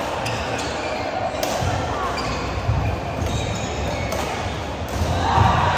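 Badminton play: sharp racket-on-shuttlecock hits every second or so, at irregular intervals, with voices in the background.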